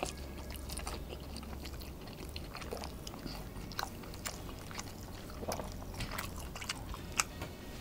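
A person chewing a bite of wagyu picanha steak close to the microphone, with soft wet mouth clicks and smacks at irregular intervals. A steady low hum runs underneath.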